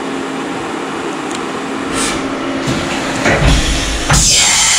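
CNC vertical milling machine starting its program after cycle start: a steady machine hum with a low tone, then from about three seconds in loud hissing bursts with low thuds as the machine gets under way.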